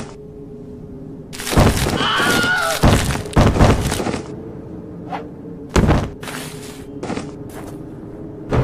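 Cartoon sound effects: short squeaky creature vocalizations and several thuds over a steady low hum.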